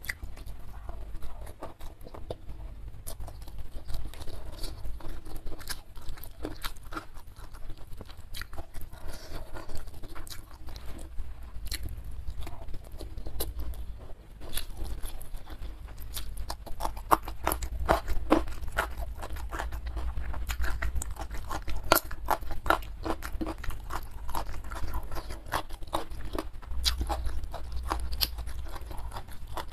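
Close-miked eating sounds: a person chewing and crunching food, with many sharp crunches that come thickest in the second half.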